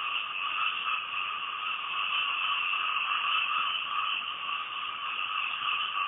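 A steady chorus of many frogs calling at once, merging into a continuous high drone with no pauses.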